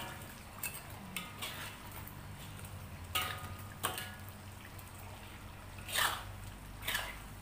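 Metal spatula scraping and knocking against a wok while stirring chicken pieces into a thick chilli sauce: scattered strokes roughly every second, the sharpest about three and six seconds in, over a low steady hum.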